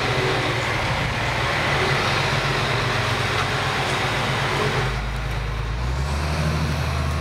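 Steady noise of a motor vehicle's engine running, with a low hum that shifts about five seconds in.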